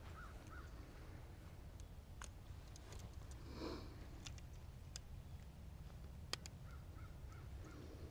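Quiet background with a low rumble and a few faint clicks, and a short animal call about three and a half seconds in. Faint short chirps come near the start and again near the end.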